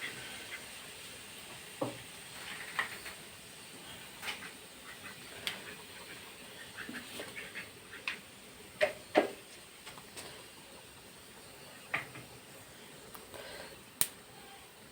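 Fennel seeds and whole spices (cinnamon, cloves, cardamom) frying in hot oil in a kadai, with scattered crackles and pops as the fennel splutters. A few louder pops come about nine seconds in.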